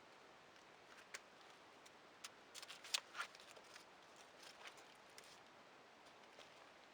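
Near-silent woods with a few faint clicks and rustles, bunched together about three seconds in.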